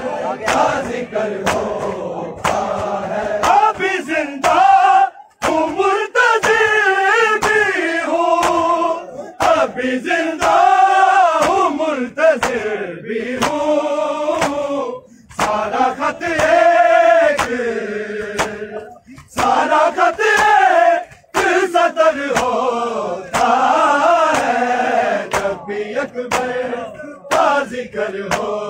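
Crowd of men chanting a noha, a Shia mourning lament, together in a loud sung chorus with rising and falling lines. Sharp, evenly spaced slaps of hands on bare chests (matam) keep the beat under the chant.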